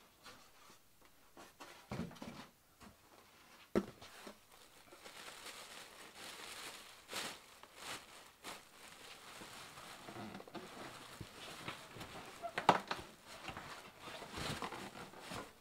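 Plastic wrapping crinkling and cardboard rustling as parts are handled inside a shipping box, with a few sharp knocks, the loudest near the start and about three-quarters through.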